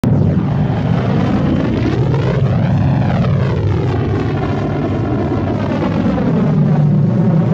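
Millennium Falcon interior engine noise, a sound-design film effect: a steady low rumble with a slow swirling sweep that rises and falls, peaking about three seconds in.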